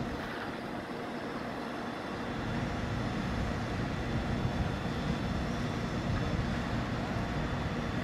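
The crane's engine running steadily while it holds a rooftop HVAC unit on its hook, heard as an even mechanical drone with a rumbling low end.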